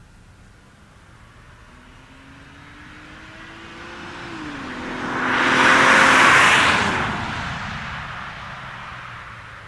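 BMW 325i with its N53 straight-six and a 330i rear silencer driving past, the exhaust note climbing as it accelerates toward the microphone. The note drops in pitch about four and a half seconds in. The sound peaks loudest about six seconds in and fades as the car moves away.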